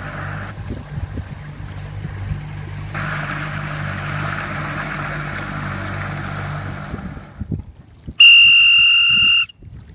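A small boat's engine hums low under wind and water rush, and stops about seven seconds in. About a second later comes a single loud, steady whistle blast lasting just over a second. The whistle is the loudest sound and cuts off sharply.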